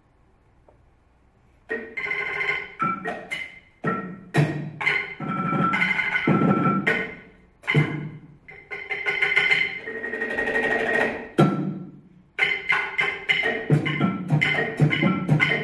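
Two percussionists striking small tabletop percussion instruments with mallets, including a wood block, in fast rhythmic phrases with ringing pitched tones. The playing starts about two seconds in and breaks off briefly about four, eight and twelve seconds in.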